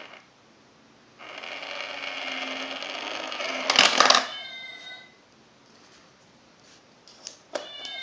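Battery-powered 'stealing cat' coin bank: its small motor whirs for a few seconds as the toy cat takes the coin, then a loud clatter about four seconds in as the coin drops inside and the lid snaps shut, followed by a short recorded meow. Near the end a sharp click and another short meow as money is laid on the coin plate.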